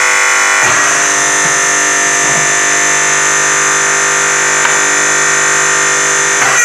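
Background music: a sustained, buzzy electronic chord held steady, shifting about 0.7 s in.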